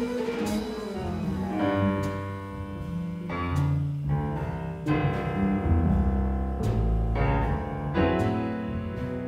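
Live jazz trio playing an instrumental passage: a grand piano leads with chords and runs over an upright double bass stepping through low notes, with occasional cymbal strokes from the drum kit.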